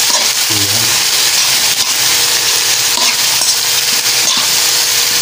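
Sliced bitter gourd sizzling in hot oil in a wok as a metal spatula stirs it, with light scrapes of the spatula against the pan every second or so.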